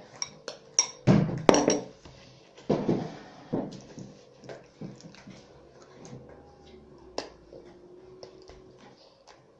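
Kitchen utensils clinking and scraping against dishes while a mixture is stirred, in a string of short clicks. There are louder knocks about a second in and around three seconds in.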